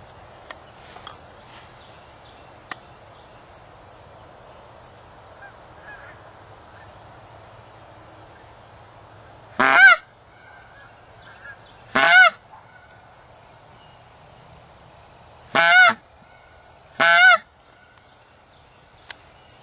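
Four loud goose honks, each under half a second: two about two seconds apart near the middle, and two more about a second and a half apart near the end, over a faint steady hiss.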